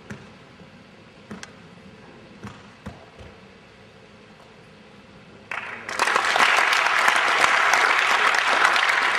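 A few faint knocks, then a group of people clapping loudly, starting about five and a half seconds in and running on to the end.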